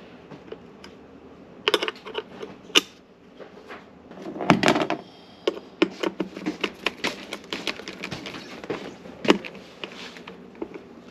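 Irregular clicks, knocks and light rattles of parts being handled as a cover is fitted and tightened on a garbage disposal. There are two louder knocks, one about four and a half seconds in and one near nine seconds.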